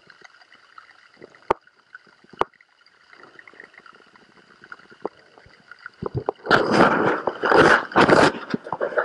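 Muffled underwater sound heard through a camera's housing: a faint steady high whine with a few sharp clicks, then from about six seconds in loud bursts of rushing, bubbling water.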